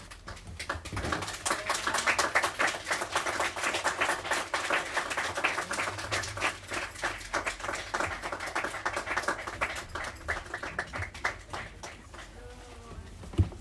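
A small audience applauding in a small room. The clapping builds up quickly, holds, then thins out and stops near the end.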